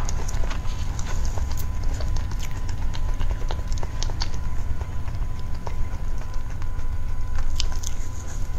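A knife cutting through a soft mousse cake and knocking on the cake board, picked up close: a run of small, irregular clicks and crackles over a steady low rumble.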